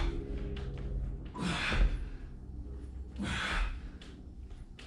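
A man breathing hard during pull-ups: two forceful breaths about two seconds apart, over a low steady hum.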